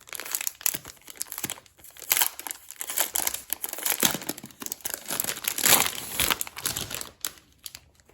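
Packaging being handled and crinkled, an irregular run of crackling rustles with a few louder crinkles in the middle.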